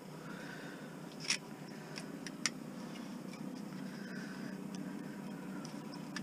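Steady low hum of an idling vehicle engine, with a few sharp clicks between about one and two and a half seconds in as a utility knife is taken out and handled.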